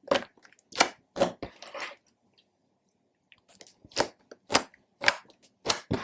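Slime being squeezed and folded by hand, giving sharp wet popping clicks about twice a second as air pockets burst. The pops come in two runs with a pause of about a second and a half between them.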